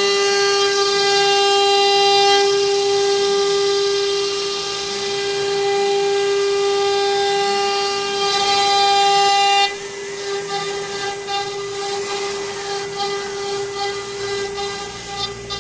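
CNC router spindle whining steadily at one high pitch as its V-bit carves grooves into a wooden door panel. About ten seconds in the whine drops in level and turns uneven and fluttering.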